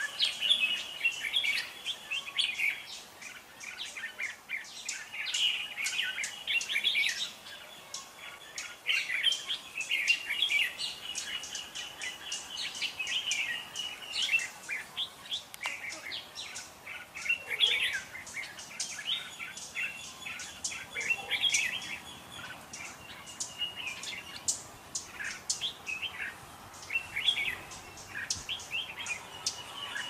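Red-whiskered bulbuls singing and calling back and forth, a continuous run of short, bright chirps and warbled phrases, as a caged decoy bulbul and a wild bird answer each other at a trap.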